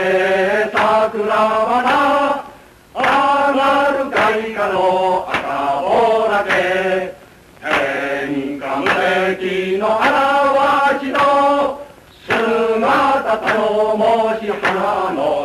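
Voices singing a Japanese wartime military song (gunka) in long held phrases, with a short breath-pause about every four to five seconds.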